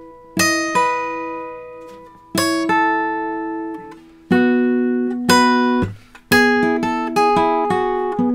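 Steel-string acoustic guitar played solo. A few chords are plucked and left to ring out and fade, then a quicker run of picked notes begins about six seconds in.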